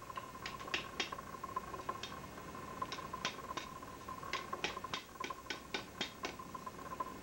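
Light, sharp metallic taps and clicks of a hammer and tongs on a hot letter-opener blank at the anvil, seating a glass marble in the steel. About twenty faint taps, irregular, sometimes two or three in quick succession.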